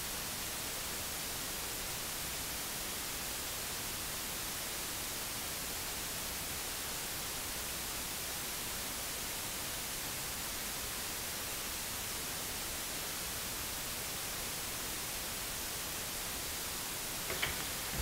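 Steady hiss of recording noise, with no other sound until a couple of faint clicks near the end.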